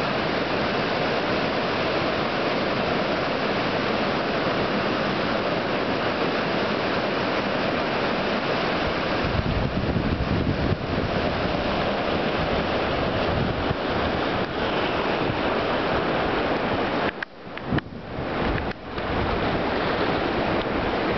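Ocean surf breaking among boulders and washing up the shore, a steady rushing wash of waves. From about halfway through, wind buffets the microphone with a low rumble, and the sound briefly drops out twice near the end.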